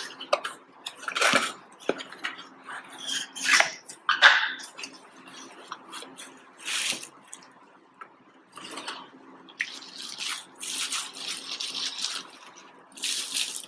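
Packaging around a camera battery grip being handled, rustling and crinkling in short irregular bursts, with a longer stretch of rustling about ten to twelve seconds in.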